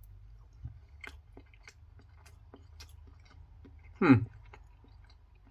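A person chewing a mouthful of soft cooked rice close to the microphone, with small irregular mouth clicks. About four seconds in there is a brief voiced sound.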